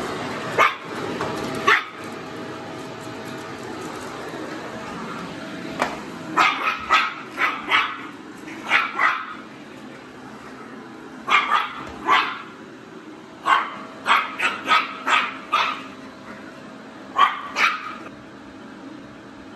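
A Maltese dog barking in short, sharp groups of one to six barks over the steady noise of a vacuum cleaner running: scared barking at the vacuum.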